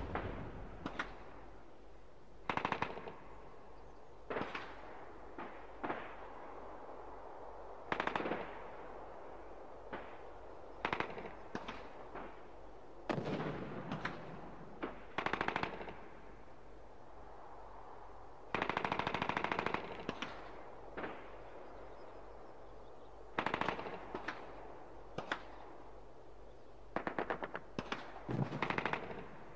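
Battle gunfire: scattered single rifle shots and short machine-gun bursts every second or two, the longest burst about 19 seconds in, lasting over a second. A faint low hum runs underneath.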